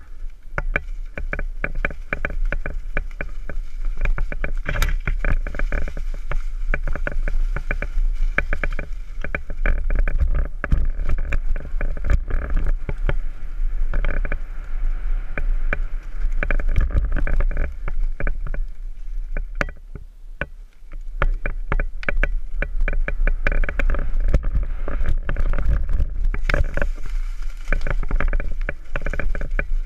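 Downhill mountain bike clattering and rattling over rough trail, with a steady low rumble from the ride beneath the rapid knocks; a brief quieter lull comes about two-thirds of the way through.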